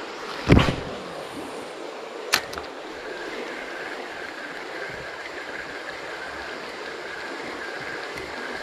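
A spinning rod swishing through a cast about half a second in, then a single sharp click a couple of seconds later, over the steady rush of river water.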